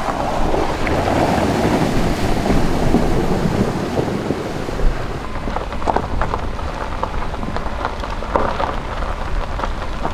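SUV splashing through a shallow stream, followed by the low rumble and crackle of tyres on a rough gravel road, with scattered knocks.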